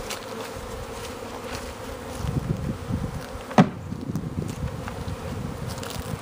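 Honeybees buzzing around the hives of a bee yard, a steady hum. Low bumps run through the middle, with one sharp knock about three and a half seconds in.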